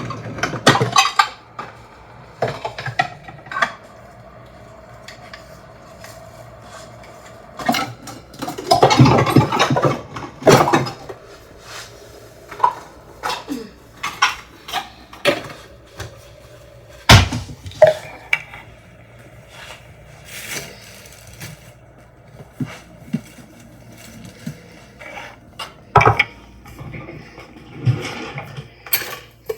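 Kitchen clatter: pots, dishes and metal utensils knocking and clinking at irregular intervals, with a longer stretch of handling noise about nine seconds in and one loud knock a little past the middle.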